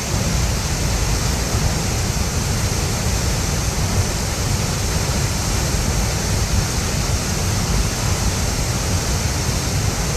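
Waterfall: a steady rush of falling water with a heavy low rumble.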